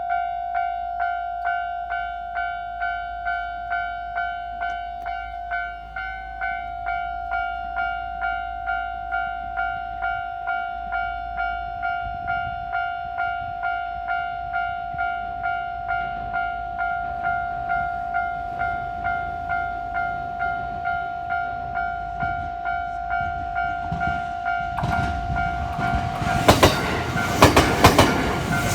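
Japanese railway level-crossing warning bell ringing steadily, about two strikes a second. About 25 seconds in a train reaches the crossing, and its wheels clatter over the rail joints.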